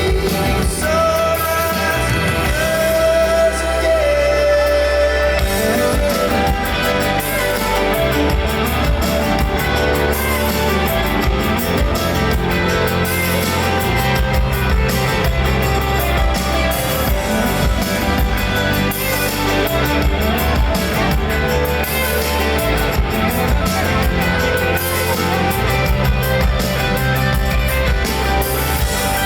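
Live rock band playing an instrumental stretch of a song, guitar and full band with a high held note in the first few seconds and the bass and drums filling in from about six seconds in, heard through the open air of a stadium concert.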